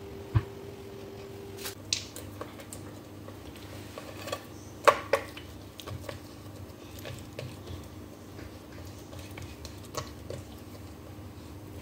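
Oiled msemen dough being pressed and spread flat by hand on a glazed ceramic bowl: soft squishing with a few sharp taps, the loudest pair about five seconds in.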